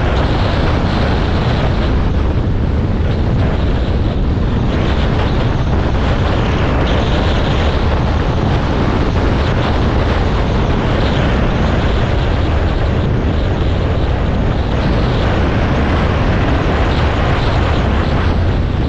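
Dual-sport motorcycle riding at a steady cruising pace on a gravel road: the engine runs evenly, mixed with wind noise on the microphone.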